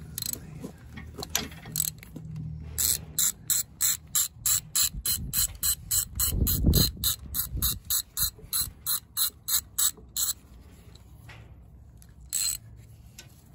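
Socket ratchet wrench clicking in a quick, even run of strokes, about three to four clicks a second, as a nut is turned on the engine near the starter motor, with one more click near the end. A dull low thump comes about halfway through.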